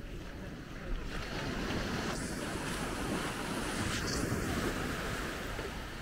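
Small waves washing up onto a sandy beach. The hiss of surf swells about a second in and fades near the end, with wind rumbling on the microphone underneath.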